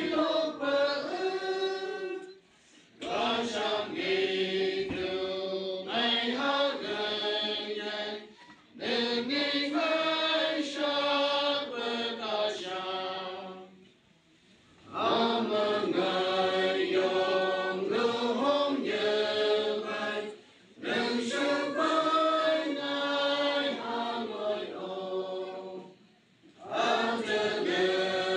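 Congregation singing a hymn together without accompaniment, in phrases of a few seconds each with brief pauses for breath between them.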